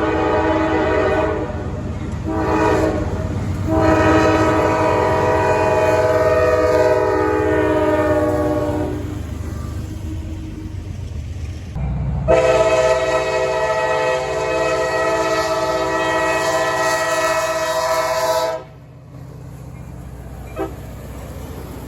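Diesel locomotive air horn sounding over a low rumble: two short blasts, a long blast, then after a pause a second long blast that cuts off sharply.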